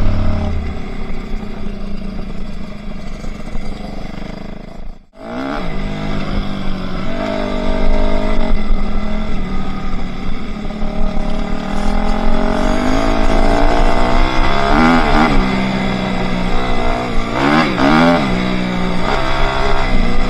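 Enduro motorcycle engine running and revving, its pitch rising and falling with the throttle. It gives quick rev blips about three-quarters of the way through and again near the end, and cuts out briefly about five seconds in.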